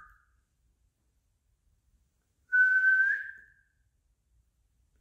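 One short whistled note, held for about a second with a slight upward lift in pitch at the end, then fading.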